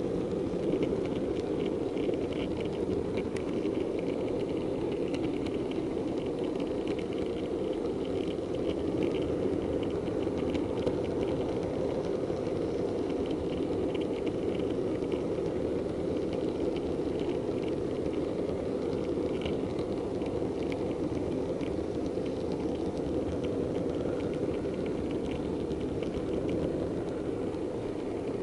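Model diesel multiple unit running along the track: a steady whirring rumble with light, irregular clicking over it.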